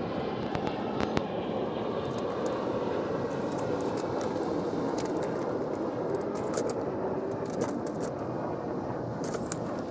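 A steady engine drone with a slowly wavering pitch, and a few light clicks.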